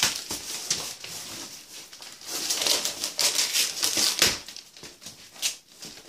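Gift wrapping paper tearing and crinkling in bursts as a present is unwrapped, busiest in the middle stretch.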